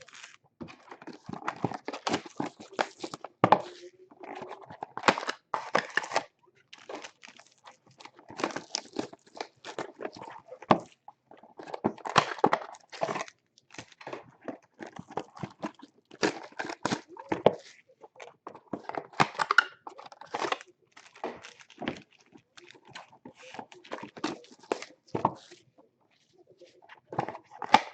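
Packs of basketball trading cards being torn open: wrapper tearing and crinkling in irregular bursts, with the cards being handled.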